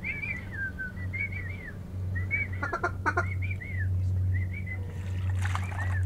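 Short whistled duck calls that rise and fall, in quick runs of two to four notes, the whistle of drake pintails. About three seconds in there is a short run of sharp clicky notes, and near the end a rougher burst, all over a steady low hum.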